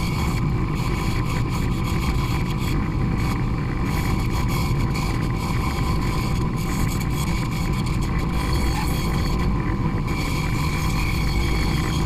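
Delta bandsaw running and cutting through a thick stack of plywood sheets, taking a series of short cuts to knock out small slivers of wood; a steady whir with the hiss of the blade in the wood.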